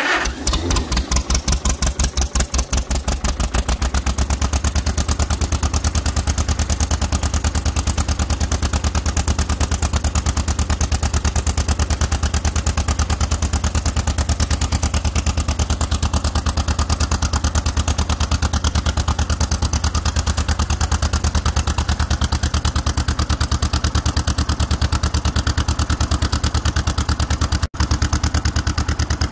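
1954 John Deere 40's two-cylinder engine starting from cold. It catches at once and runs unevenly for the first few seconds, then settles into a steady idle with an even, rapid firing beat.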